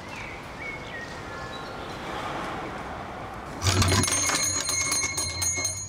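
A steady hiss, then about three and a half seconds in a shop door's bell jangles as the door opens, its high ringing going on with rapid rattling clinks.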